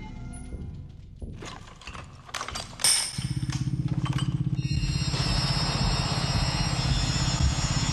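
Rapid, unbroken automatic rifle fire from the sniper's AK-47, starting about three seconds in after scattered clicks and knocks.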